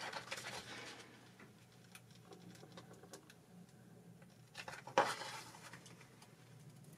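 Faint rustling and small ticks of a plastic adhesive transfer sheet being handled as its release film is peeled back, with one sharper crackle of the film about five seconds in.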